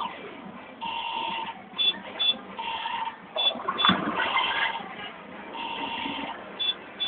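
Electronic slot machine game sounds: steady two-tone beeps, each under a second long, repeating about every second and a half, with pairs of short high blips between them, as the bonus 'action games' play off and winnings are added to the bank. A sharp knock about four seconds in.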